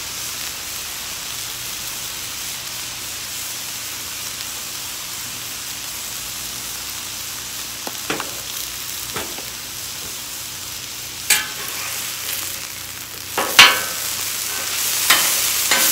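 Thin-sliced steak and buns sizzling steadily on a hot flat-top griddle. Near the end a metal spatula scrapes and clacks against the griddle several times.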